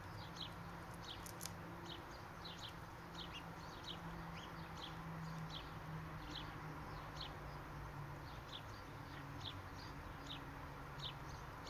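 A small bird chirping over and over, short high chirps about one to two a second, over a low steady hum.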